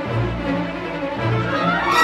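Orchestral film score with low bowed strings holding sustained notes, and a rising figure near the end that leads into a louder, fuller passage.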